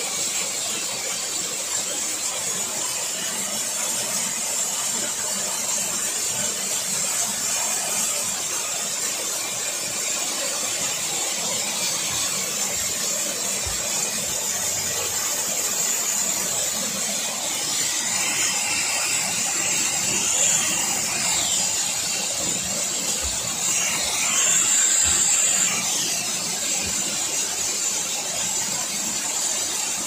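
Small waterfall cascading over rocks into a hot-spring stream: a steady rushing, splashing hiss of water. Twice in the second half a brief high sound rises and falls over it.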